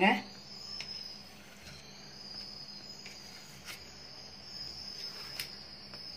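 A steady high-pitched insect trill, with a few faint sharp clicks of a knife blade against a steel plate as it scores a slab of peanut sweet.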